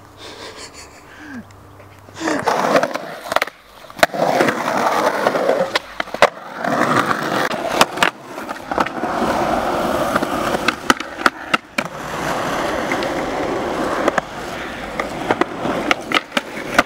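Skateboard wheels rolling on concrete, with repeated sharp clacks of the board striking the ground from about two seconds in.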